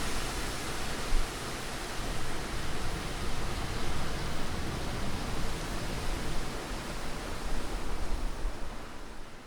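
Strong wind blowing in gusts: a steady rushing with low rumbling buffets that swell and ease, fading out near the end.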